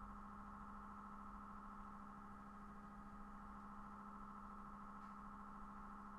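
Faint steady hum: a low tone with a higher, thin whine above it, unchanging throughout.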